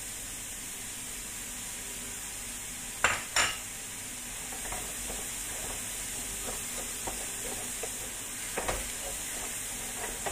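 Chopped tomato, onion and greens sizzling in a nonstick frying pan as a wooden spoon stirs and scrapes through them, with a steady hiss. Two sharp knocks of the spoon against the pan come about three seconds in, and another smaller one comes near the end.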